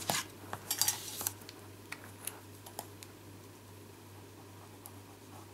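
Small clicks and rustles of a plastic liquid glue bottle being picked up and uncapped and of paper being handled on a craft mat, thickest in the first second or so, then a few faint ticks. A steady low hum runs underneath.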